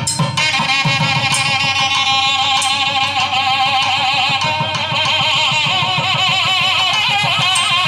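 Nadaswaram playing a continuous, heavily ornamented melody with wavering, sliding pitch, over a steady run of drum strokes.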